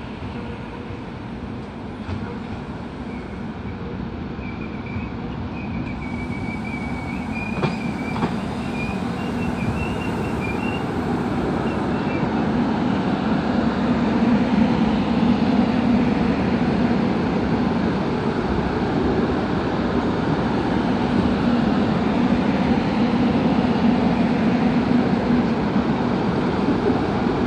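Korail Class 311000 electric multiple unit pulling into the terminus platform and rolling past, a steady rumble of wheels and motors that grows louder as the cars draw alongside. A faint wavering wheel squeal runs from about four to twelve seconds in.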